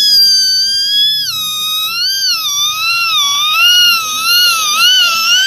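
One long, very high-pitched shrill cry, held without a break and wavering up and down in pitch, sinking a little as it goes.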